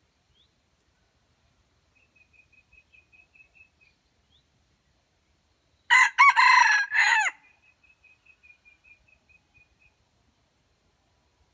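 Red junglefowl rooster crowing once: a short, clipped crow of about a second and a half, broken into several parts. Before and after it come faint rapid high peeps, about five a second.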